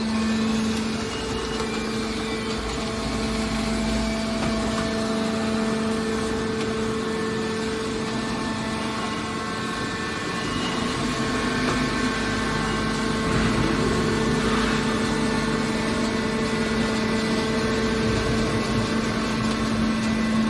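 Hydraulic metal baler running, a steady machine hum with a constant low whine; it grows slightly louder about halfway through.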